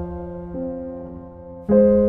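Soft background piano music: slow sustained notes, with a new note about half a second in and a louder chord near the end.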